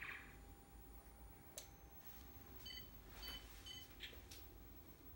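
Faint short electronic beeps from an Arduino LED dot-matrix Pong clock, three of them about two and a half seconds in, with a few faint clicks around them.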